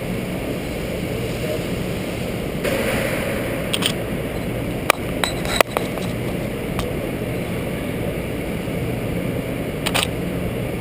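Steady hum and air noise of a huge indoor hall, with a few sharp clicks and clinks about halfway through and again near the end.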